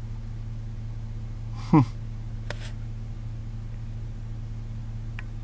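Steady low mechanical hum, with a brief loud sound gliding quickly downward in pitch about two seconds in and a click shortly after.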